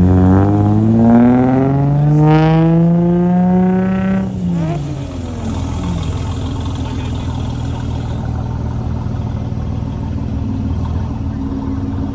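A performance car's engine revving hard as the car accelerates away, its pitch climbing for about four seconds before dropping off sharply. After that, another engine idles steadily.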